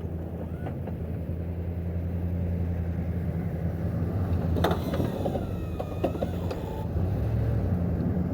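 A steady low engine hum, with a few sharp clicks and a brief creak a little past halfway through.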